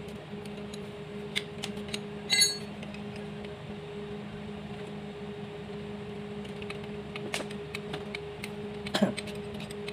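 Wrench and metal parts clicking and clinking on a diesel engine's fuel injection pump, with one loud ringing metal clink about two and a half seconds in and a sharper knock near the end, over a steady low hum.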